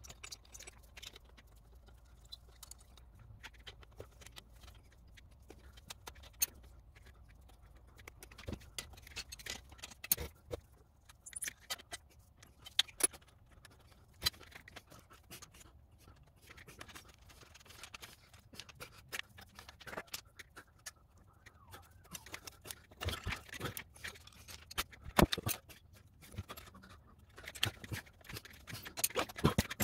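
Irregular light clicks, taps and scrapes of metal turbo parts, rods and rubber hoses being handled as the actuators are hooked up on a 1993 Mazda RX-7 FD sequential twin-turbo assembly. The handling gets busier and louder in the last few seconds, with one sharp metallic click standing out.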